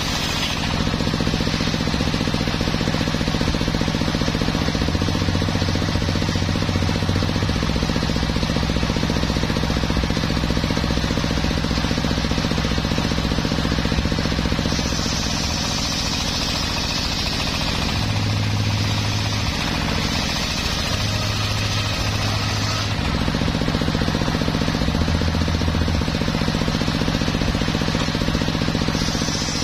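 Homemade table circular sawmill running continuously, its large blade ripping lengthwise through teak logs over the drive's steady drone. The cutting noise grows harsher in two stretches past the middle as the wood is fed through the blade.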